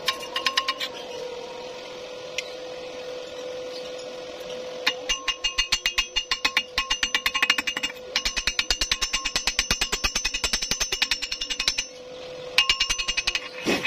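Chipping hammer rapidly tapping slag off a fresh stick-weld bead on thin galvanized steel square tube, each strike ringing metallically. The taps come in runs of about six or seven a second with short pauses between, the longest run in the second half.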